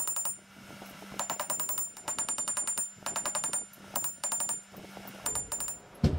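Rapid light hammer strikes on a small steel hinge leaf held on an anvil, about eight blows a second in several short runs, each blow with a high metallic ring.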